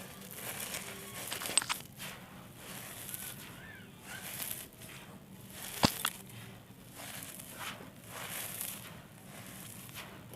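Small dried red sand-clay blocks crumbling and crunching, a gritty crackle in repeated swells, with sharp snaps about a second and a half in and again about six seconds in.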